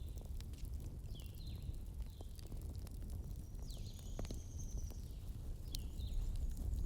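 Campfire crackling, with scattered sharp pops over a steady low rumble. Short high calls that fall in pitch repeat over it, with one longer high whistle near the middle: night-time animal calls.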